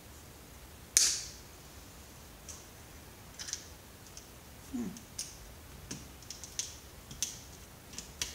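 Parts and tools being handled while taking apart a CRT computer monitor: a sharp snap about a second in, then scattered light clicks and taps, with another loud click at the very end.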